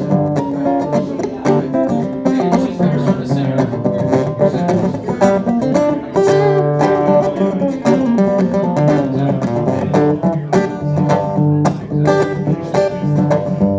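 Guitar playing an instrumental break between sung lines of a song, a busy run of plucked notes.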